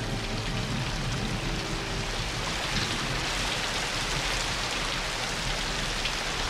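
Steady rain with rainwater running along the gutter and into a storm drain.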